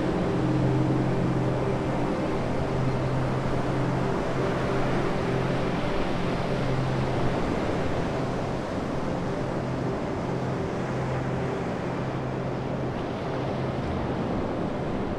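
Surf from a rough sea breaking on a sandy beach: a steady rush of breaking waves and wind. A low steady hum sounds over it for the first half and fades out after about halfway.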